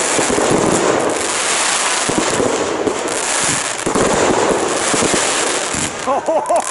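Aerial fireworks in a dense barrage: many shells bursting in quick succession over continuous crackling, with no gaps.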